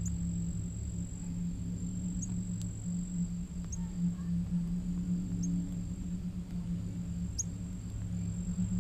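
Outdoor ambience: a steady low hum throughout, a faint high continuous insect trill, and short, high, downward-sliding bird chips every second or two.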